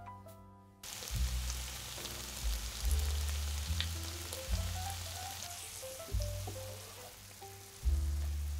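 A steady crackling hiss sets in about a second in and runs on under soft piano background music.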